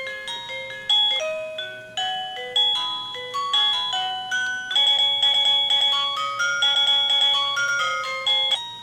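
Plug-in door chime of a wireless video doorbell playing one of its built-in ringtone melodies: a quick tune of short, bright electronic notes, with fast repeated notes through its second half.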